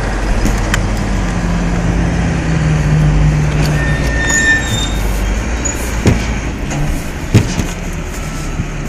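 Steady industrial machine hum, with a held low drone for a few seconds and two sharp metal knocks in the second half.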